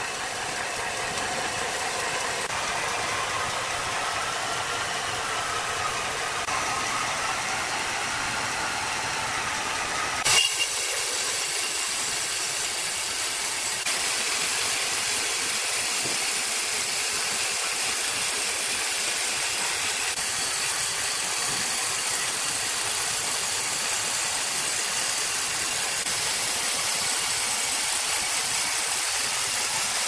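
Horizontal band sawmill running, with a steady mechanical hum and a faint whine. From about ten seconds in, its blade is cutting through a large hardwood log, a steady high hiss as sawdust sprays out of the cut.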